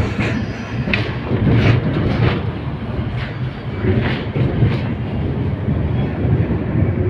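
LVS-86K tram running over the rails with a steady low rumble, its wheels giving about eight irregular clacks as they pass over track joints and the crossings at a tram-track junction.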